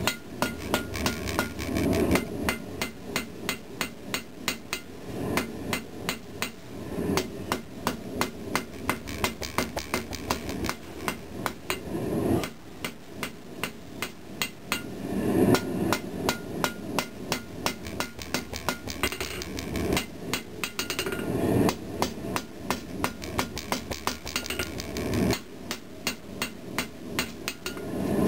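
Ball-peen hammer striking hot pattern-welded steel on an anvil in quick, even blows, a few a second, with a couple of short pauses. This is the drawing-out stage, forging the billet into a tapered blade.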